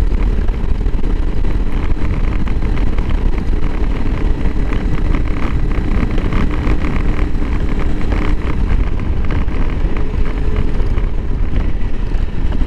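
Honda CRF300L Rally motorcycle being ridden, its single-cylinder engine running steadily under way with wind noise on the microphone.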